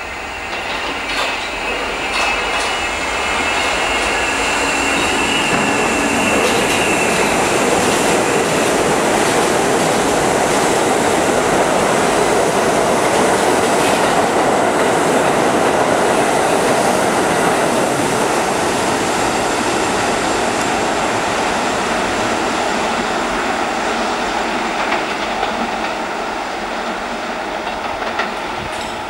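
A New York City Subway R68 train running express through a station at speed without stopping. The loud rush of steel wheels on rail builds over the first few seconds, holds through the middle as the cars pass, and eases off near the end as the train recedes. A high, steady whine sounds over it in the first several seconds.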